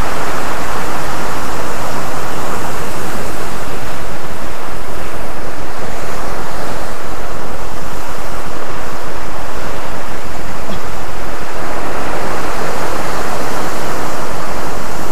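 Heavy sea surf breaking and churning against rocks below a cliff, a loud, steady rushing wash of water.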